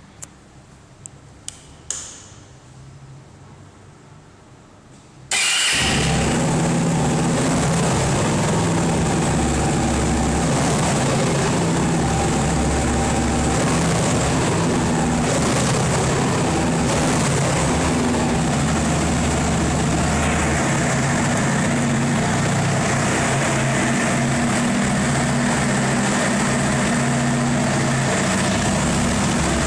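A few light clicks, then a Megelli sport motorcycle's engine starts abruptly about five seconds in and runs steadily.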